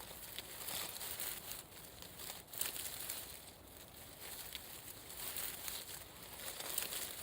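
Leaves and stems of plants being handled and brushed, a continuous dry rustling with frequent small crackles and swells.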